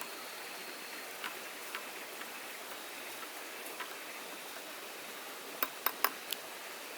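Steady rain hiss with scattered sharp ticks, and four louder clicks in quick succession about five and a half seconds in.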